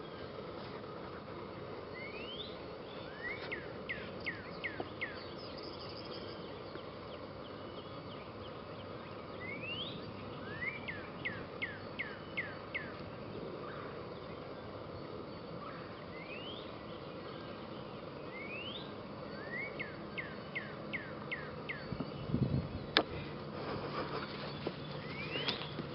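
A songbird singing the same short phrase over and over, a rising note followed by a quick run of short falling notes, roughly every seven seconds, over a steady outdoor hiss. A brief low rumble and a sharp knock come about three seconds before the end.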